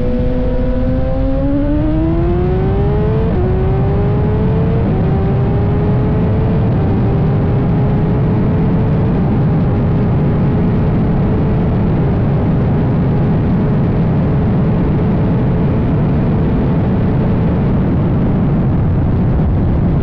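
BMW S1000RR's inline-four engine pulling hard at speed through the upper gears: its pitch climbs steadily, dipping briefly at each upshift every few seconds, under heavy wind rush.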